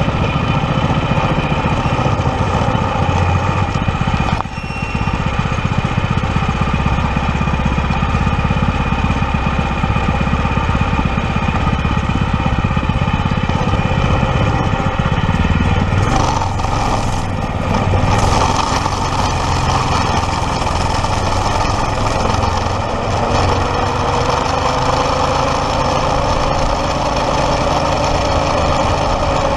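Stock Predator 212 single-cylinder four-stroke engine running steadily on a small ride-on kart. The sound dips briefly about four seconds in and carries a burst of hiss around the middle, and the engine pitch climbs slowly near the end.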